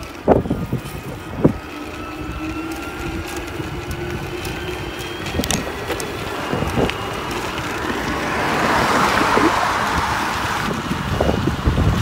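Trek Powerfly 5 electric mountain bike ridden at speed on pavement: wind rushes over the microphone and the tyres hum, with two sharp knocks from bumps in the first couple of seconds. A faint whine rises slowly in pitch under the noise.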